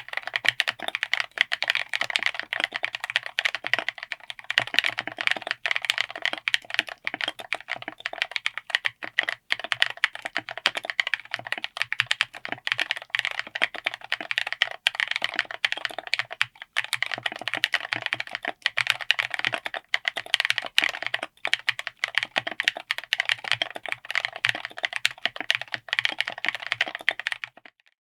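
Fast, continuous typing on a mechanical keyboard fitted with LEOBOG Ice Soul light tactile switches, mounted on an FR4 plate in an aluminium case; the keystrokes stop shortly before the end.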